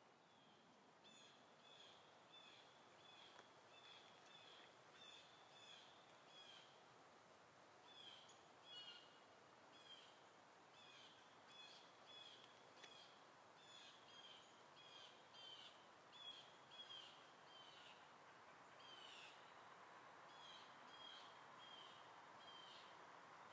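Faint bird song: a single bird repeating short high chirps, about two a second, in runs broken by short pauses, over a quiet background hiss.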